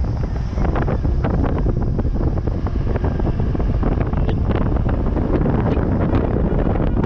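Wind buffeting the microphone in a moving vehicle, over a steady low road rumble, with frequent small knocks and rattles.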